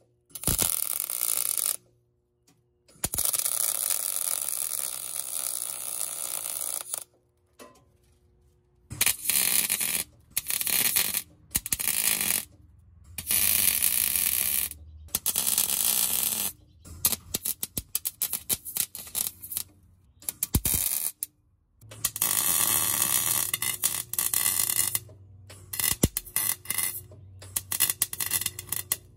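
MIG wire-feed welding arc crackling in short stitches of one to three seconds, cutting in and out abruptly as the torch trigger is pulled and released.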